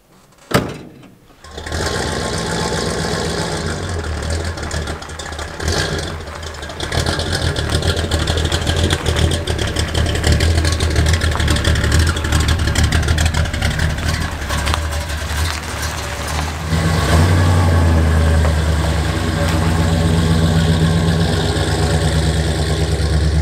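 A car door shuts, and about a second later an old full-size American sedan's engine starts and runs as the car pulls away. The engine note gets louder and heavier in the last several seconds as it accelerates off.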